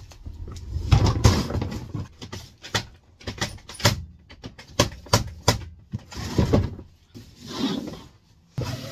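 Handling noise from moving gear about on a hard floor: a string of sharp knocks and clicks with stretches of rustling between them, as a plastic toolbox is picked up and handled.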